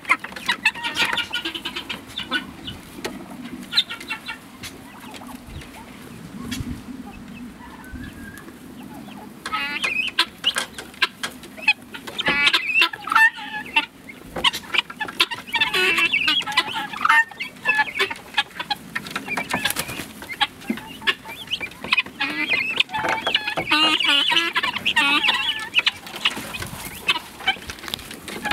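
A flock of domestic helmeted guineafowl calling: quick, harsh stuttering chatter, with overlapping birds. It eases off for a few seconds after the start and grows busy again from about ten seconds in.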